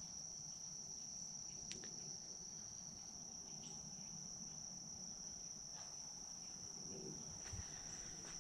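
Faint, steady insect chorus: one continuous high-pitched trill that does not change, with a few faint ticks.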